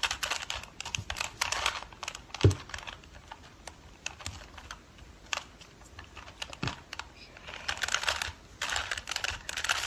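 Rubik's Cube layers being turned by hand: quick flurries of light plastic clicking, sparser single clicks in between, and one louder knock about two and a half seconds in.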